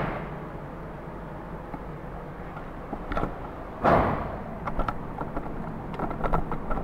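A single gunshot on an indoor firing range about four seconds in, a sharp bang with an echoing tail that dies away over about a second. Light clicks and knocks of handling come before it and after it.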